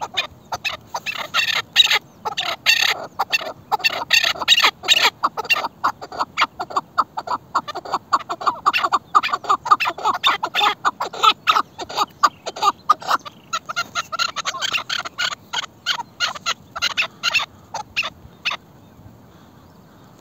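Chukar partridges calling: a long, fast run of short repeated chuckling notes, many a second, which stops shortly before the end.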